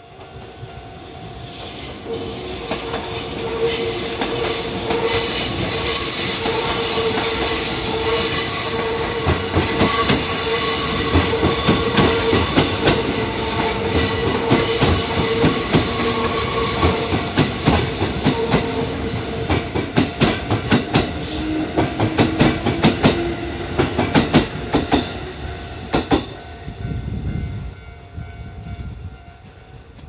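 Electric trains, a Kyoto Municipal Subway 10 series set and a Kintetsu train, passing at close range. For most of the passage there is a steady high wheel squeal. Near the end comes a rapid clatter of wheels over rail joints, and then it fades away.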